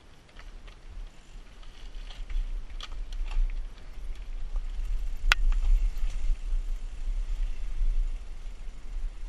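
Mountain bike riding down a rough dirt trail: wind buffeting the microphone under a rattle of the bike, with scattered clicks and knocks from the tyres and frame over stones and one sharp click about five seconds in. It grows louder over the first few seconds.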